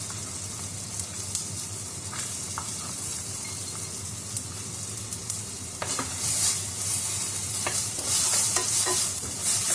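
Onions, tomatoes and freshly added coconut pieces frying in oil in a clay pot, with a steady sizzle. From about six seconds in, a spatula stirs the pan in repeated louder scraping strokes.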